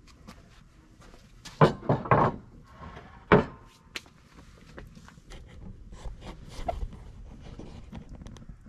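Handling clatter at a charcoal kettle grill: a cluster of sharp knocks and clunks between about one and a half and three and a half seconds in, one more about four seconds in, then lighter scattered clicks.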